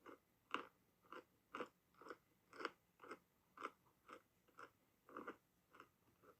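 Close-up crunchy chewing of black clay: a steady rhythm of about two crisp crunches a second, stopping near the end.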